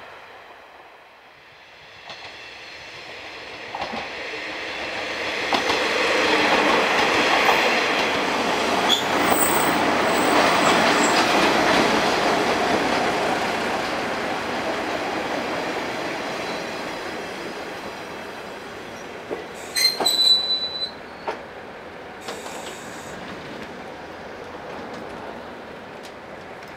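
KiHa 30/38 diesel railcar train running into a station. Its running noise swells and then fades as it slows. About three quarters through, a brief high brake squeal and sharp clicks come as it stops, then a quieter steady sound of the standing railcar.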